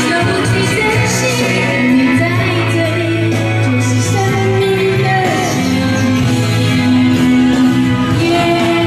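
A woman singing karaoke into a microphone over a backing track played through the room's speakers.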